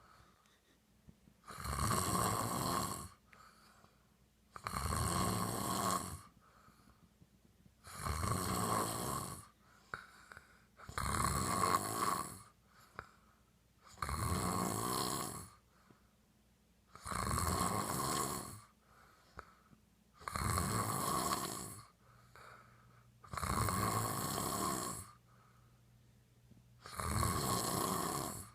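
A man snoring loudly and regularly: nine snores in a row, each about a second and a half long, coming roughly every three seconds with quiet gaps between.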